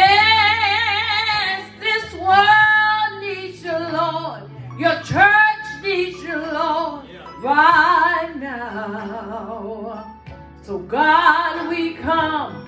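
A woman singing solo into a handheld microphone, in phrases of long held notes with a wide vibrato and short breaths between them.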